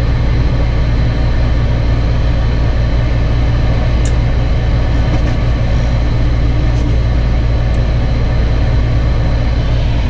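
Lennox G51MP gas furnace running through a firing attempt: a steady, loud, low rumble. The burner flame snuffs itself out quickly, which the technician puts down to a plugged combustion-air intake.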